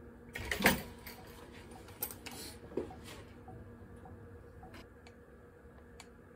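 Workshop handling noise. There is a loud, brief clatter about half a second in, another clatter and a knock around two to three seconds, then a few faint scattered clicks.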